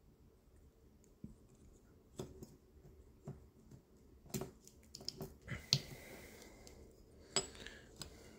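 Faint handling sounds: scattered light clicks and short rustles of a chainsaw piston and a rolled-up strip of plastic bottle being worked in the hands, starting about two seconds in.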